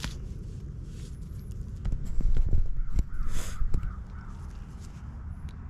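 A crow cawing a few short times about three seconds in, over low rumbling noise and scattered clicks.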